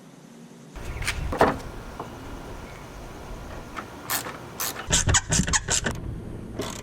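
Hand tools and metal parts clicking and clanking during a car battery swap: a few sharp clicks, then a quick cluster of them about four to six seconds in, over a low rumble.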